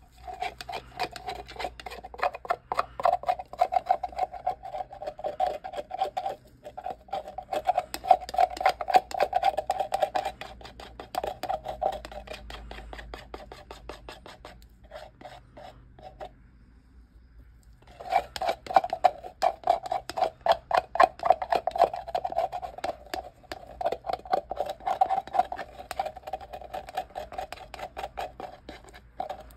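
Stir stick scraping rapidly around the inside of a plastic cup, pushing glitter-filled epoxy resin out into a silicone mould. The scraping stops for about two seconds a little past the middle, then starts again.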